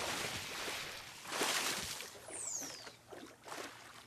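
Water splashing and churning, with a swell about a second and a half in and a short high falling whistle just after, then fading away.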